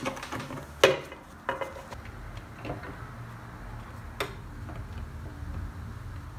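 A few sharp clacks from manual paper-crafting tools. The loudest comes about a second in, from a corner-rounding cutter clipping the corner of a card notebook cover. Lighter knocks follow, then a sharp click from the lever handle of a paper punching machine about four seconds in.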